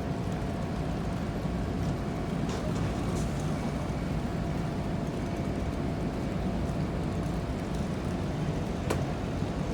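A running engine's steady low rumble, with a faint steady hum above it, cutting in abruptly.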